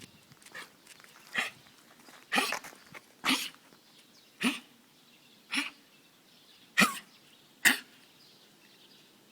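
A schnauzer coughing repeatedly: about eight short hacking coughs, roughly one a second, as if something were caught in its throat. The owner wonders whether it is a cold.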